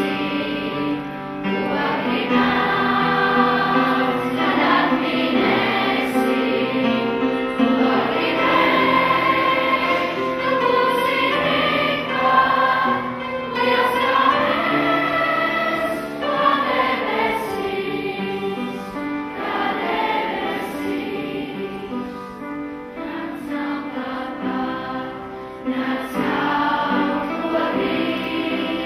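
Children's choir singing a piece together in several sustained, moving vocal lines. It drops to a softer passage about three-quarters of the way through, then swells again near the end.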